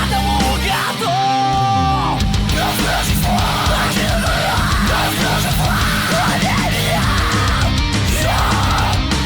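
Loud heavy rock music with a steady driving beat; a low slide falls in pitch about a second in.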